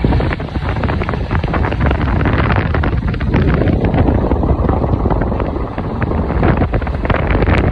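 Wind buffeting the microphone: a loud, continuous rumbling roar with irregular crackles.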